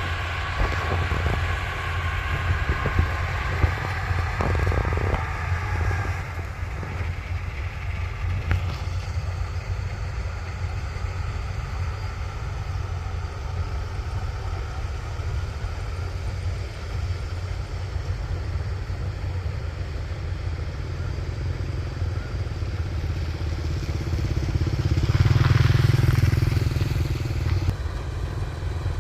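Kubota rice combine harvester's diesel engine running steadily under load, with a low hum throughout that swells louder for a couple of seconds near the end.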